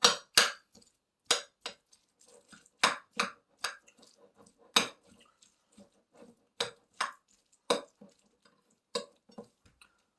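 A spoon clinking and scraping against a plate while eating kimchi fried rice: about fifteen sharp, irregular clinks, the loudest in the first half-second.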